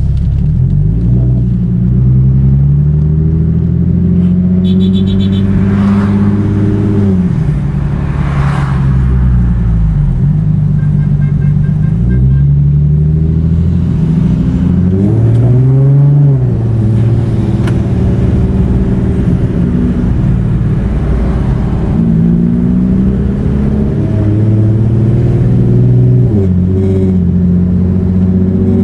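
Turbocharged Infiniti G37's V6 engine running under way, its pitch rising and falling several times as the car speeds up and eases off through the gears.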